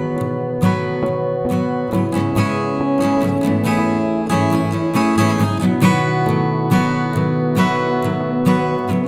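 Background music: acoustic guitar strumming chords at a steady pace.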